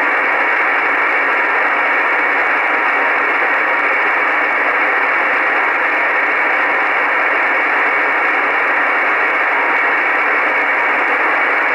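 Steady shortwave static hissing from an Icom IC-R8500 receiver in upper-sideband mode, with no signal on the frequency between voice transmissions. The hiss is narrow and thin, like a telephone line, with no deep or high tones.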